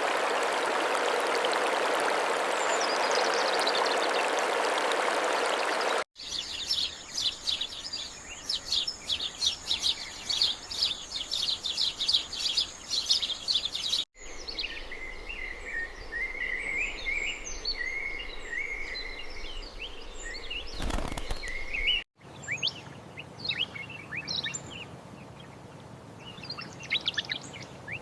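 Songbirds chirping and calling in short outdoor recordings spliced together. The first few seconds are a steady rushing noise. Then come rapid, high, repeated chirping, then twittering calls with a brief low thump shortly before a cut, and then scattered chirps.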